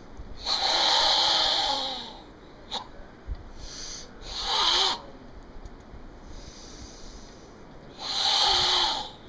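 Forceful, audible Sanchin kata breathing of a Goju-ryu karateka: three loud forced breaths drawn through a tightened throat, the first and last long, about a second and a half each, a shorter one in the middle.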